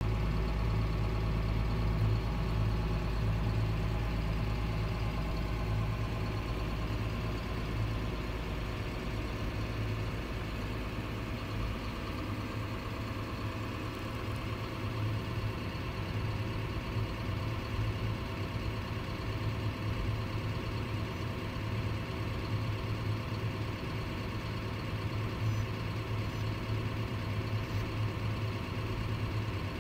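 A motor drive running steadily at very low speed with an even, engine-like hum; the deepest rumble drops away about twelve seconds in.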